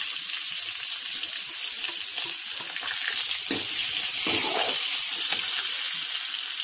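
Chopped onions sizzling in hot oil in a kadhai, stirred with a steel ladle. The sizzle swells for about a second halfway through.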